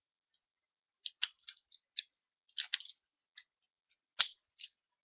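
Plastic parts and ratchet joints of a Transformers Combiner Wars figure clicking as it is handled and transformed toward robot mode: an irregular run of short, sharp clicks starting about a second in, the loudest near the end.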